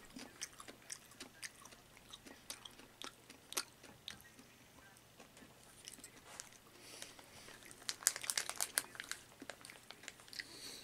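A person chewing food with the mouth close to the microphone: soft, scattered mouth clicks and smacks, with a denser flurry of sharper clicks about eight seconds in.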